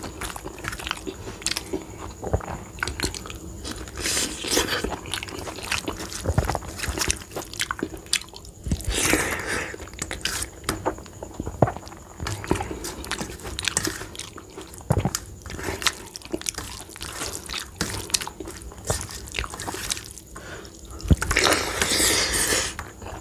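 Close-up sounds of a person eating rice and dal by hand: wet chewing and lip smacks made up of many short clicks. A few longer, louder wet stretches come about four, nine and twenty-one seconds in.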